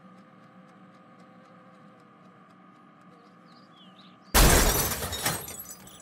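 A crash sound effect, something smashed to pieces with shattering, coming in suddenly about four seconds in and dying away over a second or so; it stands for the dinner table being destroyed.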